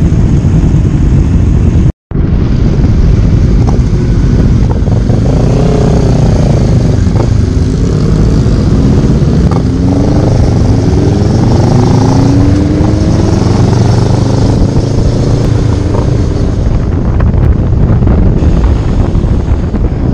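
Motorcycles riding in a group, their engines rising and falling in pitch as they accelerate and change gear, under heavy wind buffeting on a helmet-mounted microphone. The sound cuts out briefly about two seconds in.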